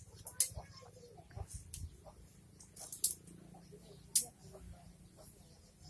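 Small goat sneezing: several short, sharp nasal bursts, the loudest about four seconds in.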